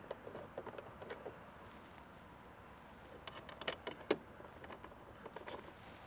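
Faint scattered clicks and light metallic clinks of short bolts being handled and started by hand into a metal door bracket, with a few sharper clicks about three to four seconds in.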